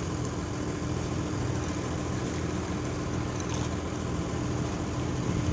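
Heavy engine of the large lifting machine carrying the house, running steadily with an even hum.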